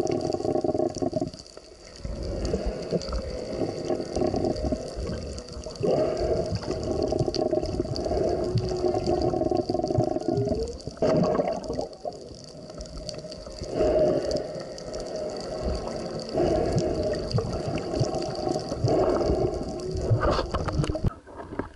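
Whale song heard underwater: long tonal calls lasting a few seconds each, some gliding upward in pitch, in phrases separated by short pauses.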